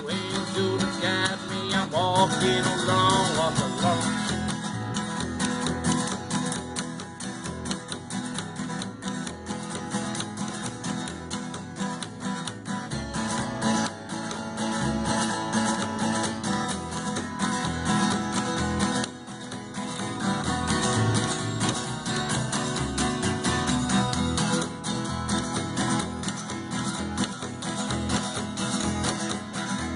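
An acoustic guitar and an upright double bass play an instrumental passage together without singing: the guitar strums and picks while the bass plucks a steady line underneath.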